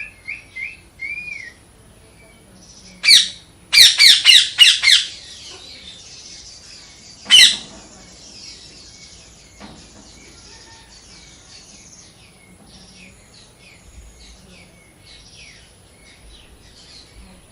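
Parrot calling: a few short whistled notes, then loud harsh squawks, one about three seconds in, a quick run of about five just after, and one more near the middle, followed by fainter high chirps and twitters.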